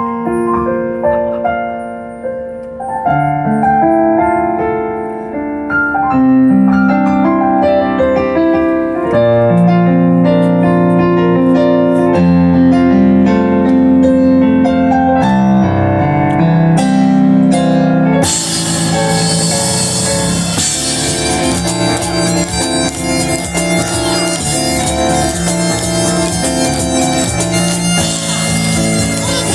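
Live instrumental: a piano plays a building melody, then about 18 seconds in bagpipes join with a bright, sustained sound over the piano and percussion.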